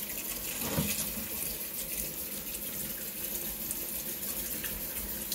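Kitchen tap running steadily into the sink.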